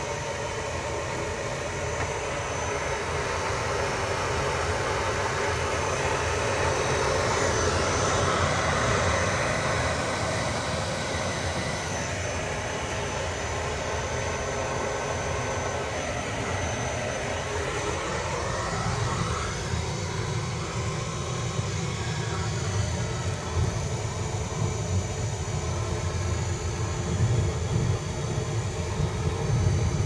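Oil-fired furnace burner running with a steady roar of fan and flame, swelling a little partway through.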